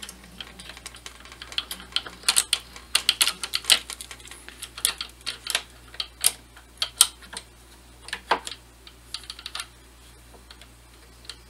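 Small metal parts of a reloading press, the swage rod and its bracket, clicking and clinking as they are worked by hand: irregular light clicks, busiest in the first seven seconds and sparser after, over a faint steady low hum.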